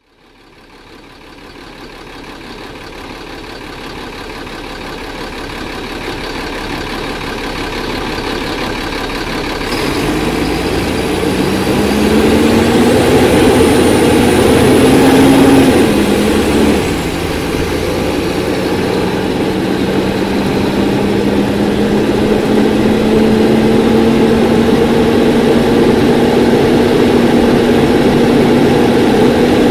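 2001 Nova Bus RTS's Cummins ISC 8.3-litre diesel engine, heard from inside the bus. A low rumble fades in, and about ten seconds in the engine pulls hard with its pitch rising. About sixteen seconds in the ZF Ecomat automatic shifts up and the pitch drops, then it climbs slowly again under load.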